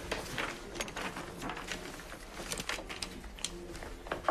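Faint, scattered light clicks and knocks over quiet room tone.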